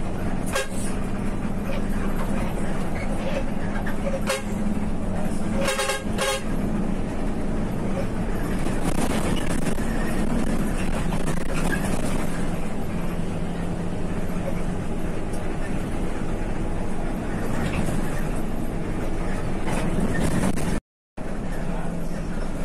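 Steady engine hum and road noise inside the cab of a moving intercity bus, with a few short horn toots in the first six seconds. The sound cuts out completely for a moment near the end.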